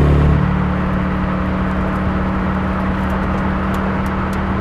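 Audi RS5's 4.2-litre V8 running at steady revs as the car cruises, a constant engine note over tyre and road noise. A louder, deeper engine note at the very start drops to the steady one within the first half second.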